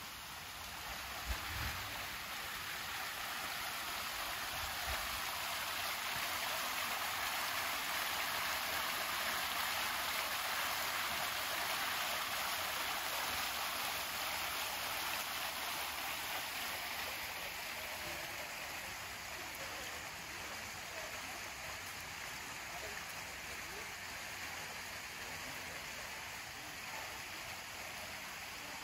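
Fountain water jets splashing into a stone basin, a steady rushing splash that swells and then fades.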